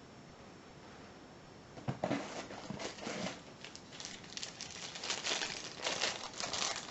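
Packaging crinkling and rustling as an item is unwrapped by hand, an irregular run of crackly crinkles starting about two seconds in after a quiet moment.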